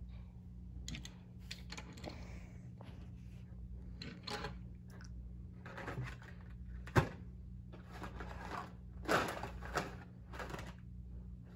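Handling of toy cars and their blister-card packaging on a wooden table: scattered light clicks, taps and plastic-and-card rustles, with one sharper tap about seven seconds in.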